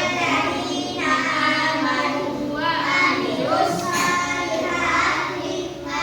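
A group of children singing together, with several voices blending into one continuous song.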